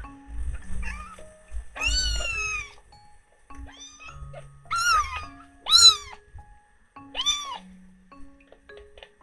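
Kitten meowing about four times, each call rising then falling in pitch, the first the longest and the later ones short. A gentle background tune plays under the calls.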